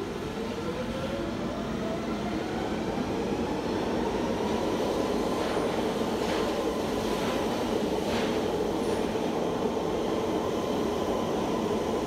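London Underground tube train pulling out of a platform: the motor whine rises in pitch over the first few seconds, then the train runs at a steady pitch with a rumble and a few clacks of the wheels.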